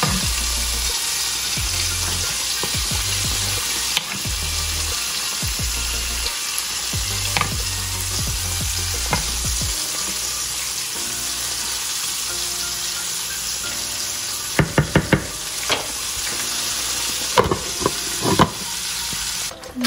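Steady sizzle of breaded small fish frying in oil in a pan, with a wooden spoon stirring a pot of mung bean soup. Near the end come a few sharp clinks and knocks as the pot's glass lid is set on.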